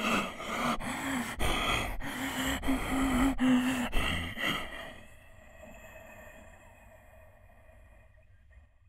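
A person imitating with the mouth a Tokyu 5000 series express train passing through a station without stopping: a hummed motor tone over rhythmic clicks, about two to three a second, for the wheels on the rail joints. It fades away about five seconds in as the train draws off.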